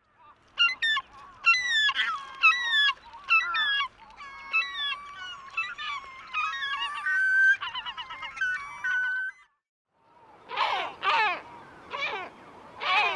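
Glaucous gull calling: a long run of repeated high calls, each falling in pitch. After a short pause about ten seconds in, a great black-backed gull takes over with louder, lower calls that rise and fall.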